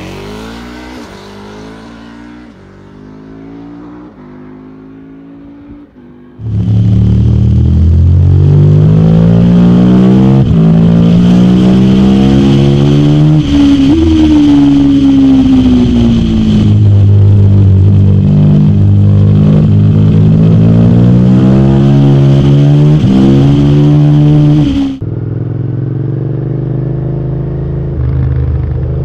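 KTM 1290 Super Duke R's liquid-cooled 75° LC8 V-twin accelerating hard through the gears, at first pulling away and fading into the distance. Then it is heard onboard and much louder at full throttle, its pitch climbing and dropping at each upshift and falling as it slows about halfway before climbing again. Near the end it cuts to a quieter, steadier twin-cylinder motorcycle engine cruising.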